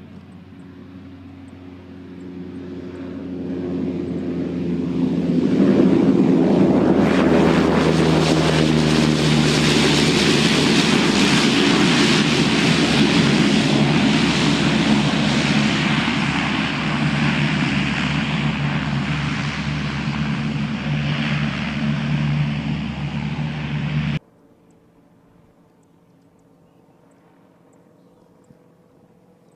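MQ-1 Predator drone's Rotax 914 four-cylinder piston engine and pusher propeller running hard on its takeoff run, growing louder over the first few seconds, then a loud steady drone. The sound cuts off suddenly about three-quarters of the way through, leaving only faint background.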